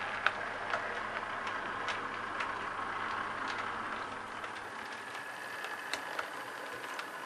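OO gauge model train running on its track: a steady whirr from the motor and wheels, with irregular clicks as the wheels pass over rail joints and points. The sound steps down slightly about four seconds in.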